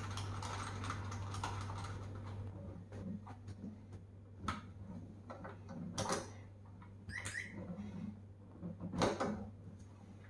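Handling clicks and knocks of an electric scooter charger's plug and cable being pushed into the scooter's charging port and a wall socket, with sharper clicks about four, six and nine seconds in. A steady low hum runs underneath.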